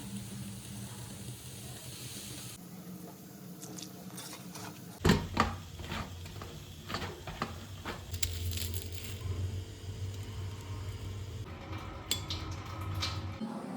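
Food preparation sounds: soft squishing handling, with a loud cluster of sharp knocks and clicks about five seconds in and scattered clicks after, over a low steady hum.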